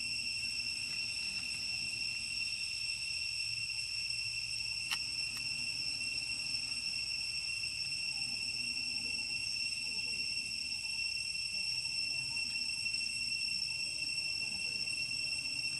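Insects droning in a steady, unbroken high-pitched tone, with a single sharp click about five seconds in.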